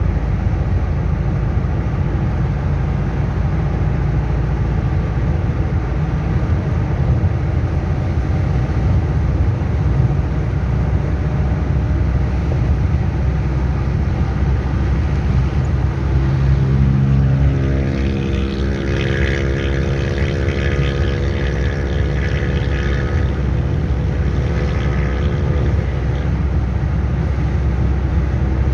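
Turbocharged Chevrolet D-10 pickup's diesel engine running steadily. About two-thirds of the way through, a pitched whine made of several tones comes in over it and holds for around ten seconds.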